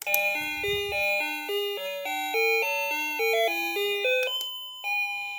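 Luckarm doorbell chime playing an electronic melody: a quick tune of clear notes, about five a second, for some four seconds, then after a short gap one held note that slowly fades.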